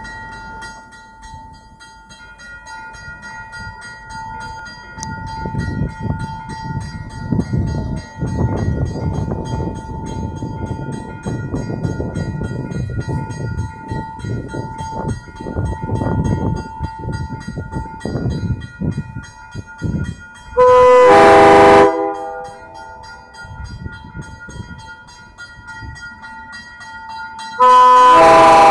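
Railroad grade-crossing warning bell ringing steadily, with a low rumble under it for much of the time. About twenty seconds in, an MBTA commuter train's multi-tone horn sounds one blast of just over a second, and a second blast begins just before the end, warning of the train's approach to the crossing.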